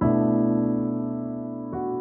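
Soft piano music: a chord struck at the start and left to fade, then another chord about three-quarters of the way through.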